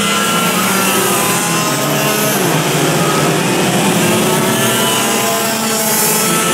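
Several racing kart engines running together, their pitch rising and falling as the karts brake and accelerate through the corners.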